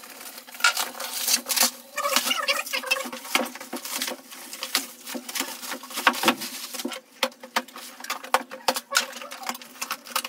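Plastic stretch wrap crinkling and ripping as it is slit with a knife and torn off a cardboard box, in quick irregular crackles and scrapes.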